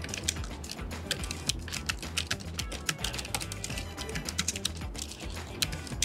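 Typing on a Logitech K380 Bluetooth keyboard: quick, irregular clicks of its round, low-profile keys, several a second, over background music.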